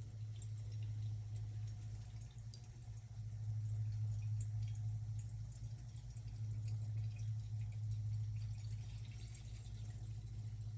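Indoor tabletop fountain running: water trickling and dripping over its stone bowls in many small, irregular drops, over a steady low hum from its pump.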